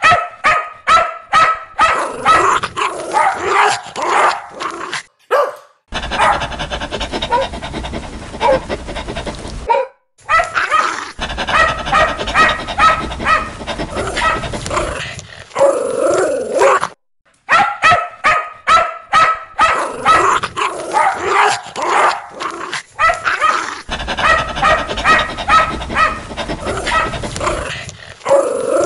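Aggressive dog barking, loud and fast, in runs of rapid barks broken by a few short gaps.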